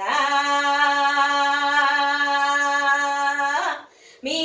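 A woman's voice singing a Marathi devotional bhajan, holding one long steady note for about three and a half seconds. After a short breath pause, the singing resumes near the end.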